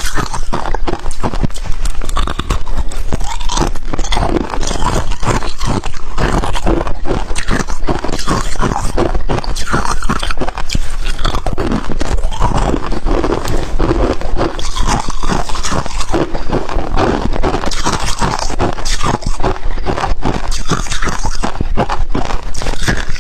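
Close-miked biting and chewing of powdery freezer frost ice, a dense, unbroken run of crisp crunches.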